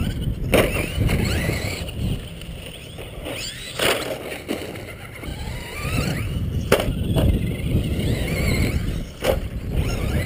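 Traxxas R/C trucks' motors whining, rising and falling in pitch as they speed up and slow down, with a few sharp knocks, over a steady wind rumble on the microphone.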